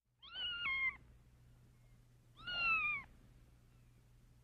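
A kitten mewing twice, two high-pitched calls each under a second long; the first steps down in pitch partway through.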